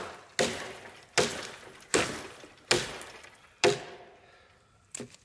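Wood being chopped: five hard, evenly spaced blows about three quarters of a second apart, each with a short decaying ring, then a lighter knock near the end.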